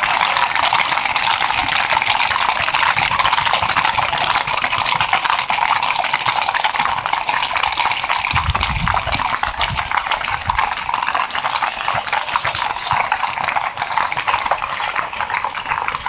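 Many shod horses' hooves clattering on a paved road as a large column of riders passes, a crowded mass of rapid overlapping clicks over a steady wash. A few low rumbles come about halfway through.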